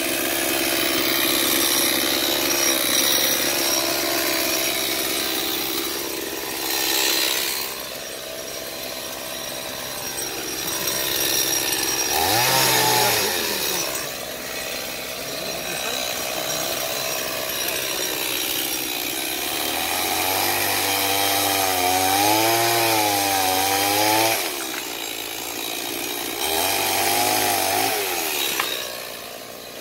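Two-stroke chainsaw running and cutting wood, its engine pitch wavering up and down as the revs rise and sag under load, in several spells.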